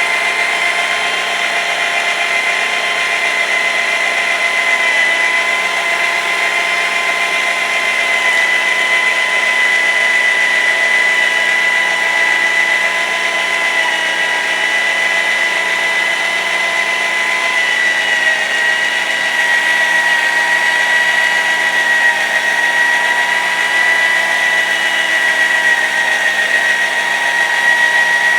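Electric drill running steadily with a constant whine, slowly spinning a carbide-tipped circular saw blade through sand and liquid to scrub pitch and gum off the teeth.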